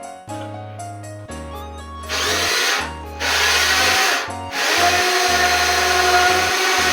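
A handheld power tool starting about two seconds in, running in two short bursts and then steadily from about halfway on, over background music.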